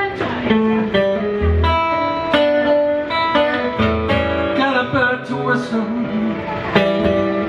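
Steel-string acoustic guitar playing a blues, a run of picked notes and strummed chords.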